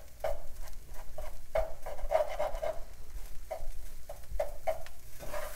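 A utensil stirring and scraping in a pan of frying vegetables, in short irregular strokes, as the half-set egg is worked into the fried rice.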